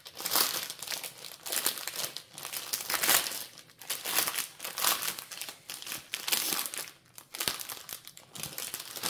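Clear plastic sleeve and a diamond painting canvas's plastic cover film crinkling in irregular rustles as hands pull the folded canvas out of its bag.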